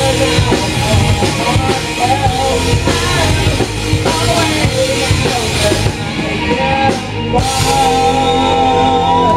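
Live rock band playing: a singer over electric guitar, bass guitar and drum kit, ending on one long held note near the end.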